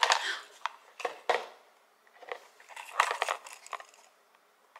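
Crinkling and rustling of a small jewelry box and its packaging being handled, in irregular bursts with a couple of sharp clicks about a second in.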